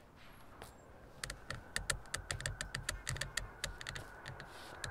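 A fast run of light, sharp clicks, about six a second, with soft low thumps under them. It starts about a second in and fades near the end.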